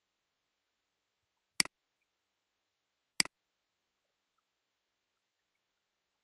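Two sharp computer mouse-button clicks about a second and a half apart, each with a softer second tick right after it.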